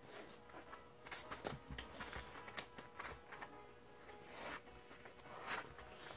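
Quiet rasps and crackles of green painter's tape being pulled and pressed down by hand onto foam, in several short spurts.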